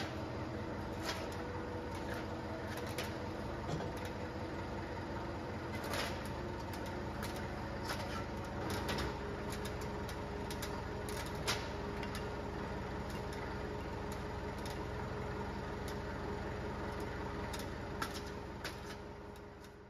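Portable line boring machine running, its boring bar turning in the worn attachment bore and taking a light cut. A steady motor hum carries sharp irregular clicks, and the machine winds down right at the end.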